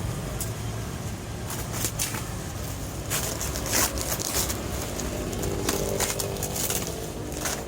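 Plastic packaging crackling and rustling in short, irregular bursts as it is handled, busiest in the middle, over a steady low background rumble.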